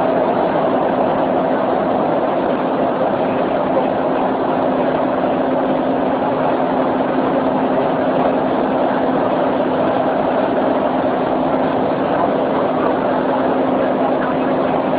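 Electric commuter train running at speed, heard from inside the carriage: a steady rushing rumble of wheels and running gear with a steady low hum.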